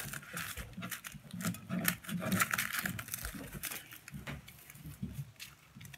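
Packaging being handled by hand: crinkle-paper shred and wrappings rustling, with many light clicks and taps as items are lifted out of a cardboard box.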